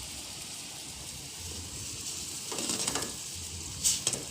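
Pot of spiced herbal drink simmering with a steady hiss, and a utensil stirring in it: a short scrape about two and a half seconds in and two sharp clinks near the end.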